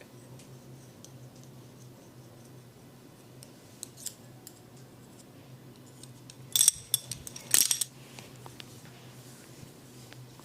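Metal implements clinking: two short clusters of sharp metallic clicks with a bright ring, the first a little after halfway and the second about a second later, with a few faint clicks before them, over a steady low hum.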